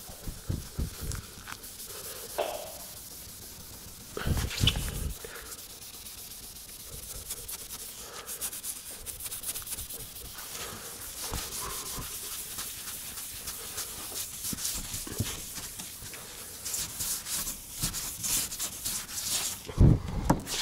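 Grey non-woven abrasive scuff pad rubbed by a gloved hand over a car's painted body panel in quick strokes. It is matting the old paint, breaking up the sanding scratches so the new paint will key. A louder bump about four seconds in.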